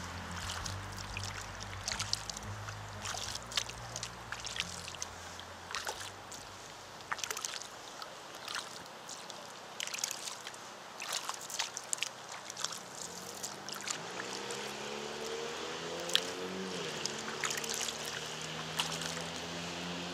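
Double-bladed kayak paddle strokes: the blades dip and splash into river water at an irregular pace, with water dripping off the paddle between strokes. Quiet background music runs underneath.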